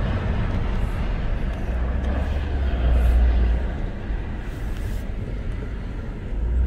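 Steady low rumble of road and engine noise inside the cabin of a Lexus RC300 while it is being driven, swelling slightly about halfway through.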